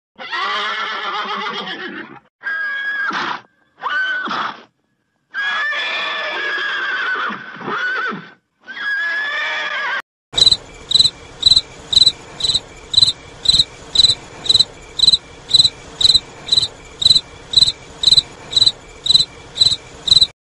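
A horse whinnying, five calls in the first ten seconds, then a cricket chirping in a steady run of short, high chirps, about two and a half a second.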